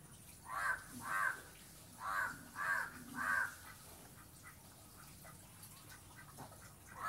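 A crow cawing: two harsh caws, a short pause, then three more in quick succession.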